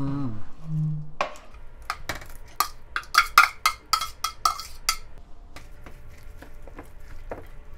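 A metal spoon clicking and scraping against a plastic bowl and a stainless-steel mixing bowl as chopped kimchi is scraped into thick batter. A quick run of sharp clicks builds from about a second in, then gives way to fainter scattered taps as the kimchi is stirred in.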